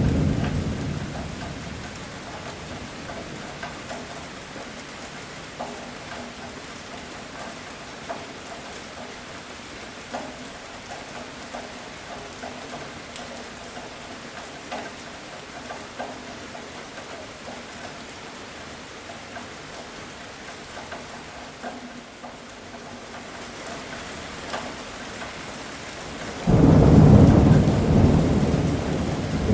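Steady heavy rain with scattered close drips during a thunderstorm. A thunder rumble dies away at the start, and near the end a sudden loud crack of thunder breaks into a long rumble.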